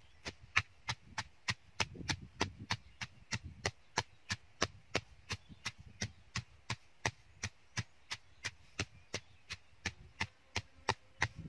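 Stone pestle pounding in a stone mortar, crushing garlic cloves into a lemongrass spice paste: steady, evenly spaced sharp knocks, about three a second, with duller thuds in the first couple of seconds.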